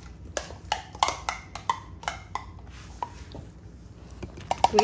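A metal utensil tapping and scraping against a glass measuring cup, knocking a thick mixture out into a plastic zip-top bag. The sharp clicks come about three a second at first, then ease off and return as a quick cluster near the end.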